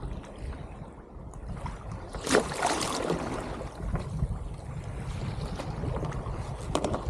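Wind buffeting the microphone with a steady low rumble, a sudden loud rustling, splashing burst about two seconds in, and a few sharp clicks near the end.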